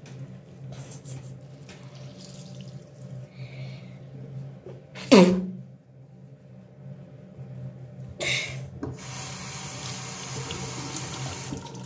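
Water tap running into a bathroom sink for the last few seconds, as a steady hiss, over a low steady hum. About five seconds in, a child gives a short, loud cry that falls in pitch.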